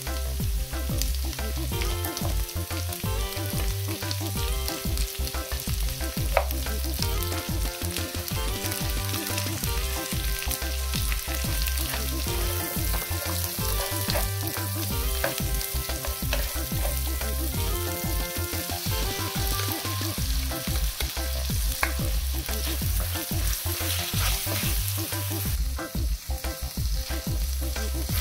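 Sliced vegetables frying in hot oil in a nonstick pan, sizzling steadily while a spatula stirs and scrapes them around the pan.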